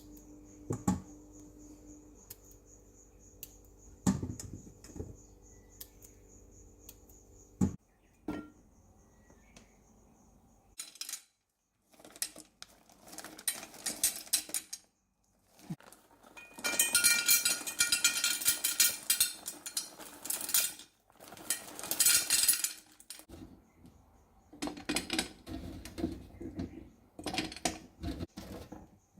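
Kitchen clatter: dishes, utensils and containers clinking and rattling on a counter, in loud bouts, with a faint steady hum and a few sharp clicks in the first several seconds.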